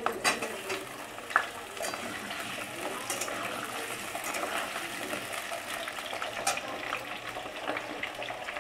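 Cubed potatoes sizzling as they fry in oil in a steel kadai, with a metal spatula clinking and scraping against the pan as they are stirred; the sharpest clinks come in the first two seconds.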